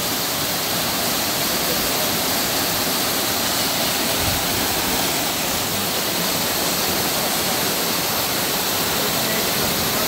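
Waterfall plunging down a rock face into a pool: a steady, even rush of falling water.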